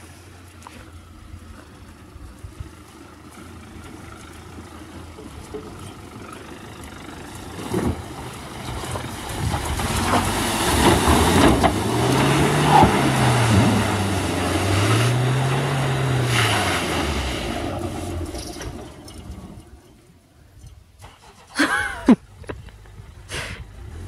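Nissan X-Trail's engine building as the car drives through a creek crossing and up a steep, muddy bank, the revs rising and falling twice during the climb, then fading away. A few sharp knocks near the end.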